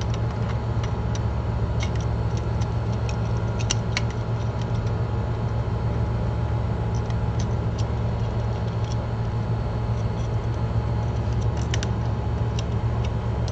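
Steady low electrical hum, with scattered light clicks and taps of small parts being handled on the repair bench.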